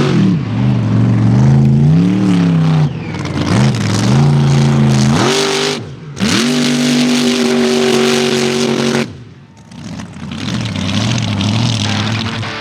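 Mega truck's engine revving hard, its pitch rising and falling several times, then held high for about three seconds before it drops off sharply about nine seconds in; it revs again, less loudly, near the end.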